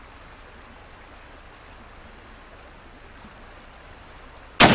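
A steady low hiss, then near the end a single sharp rifle shot from a scoped hunting rifle, its report beginning to ring away.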